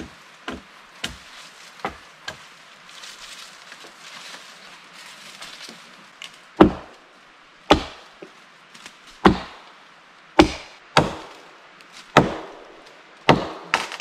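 Chopping blows into a green log as its small branches are trimmed off: a run of lighter strikes about half a second apart for the first two seconds, then, after a pause, heavier single blows roughly once a second.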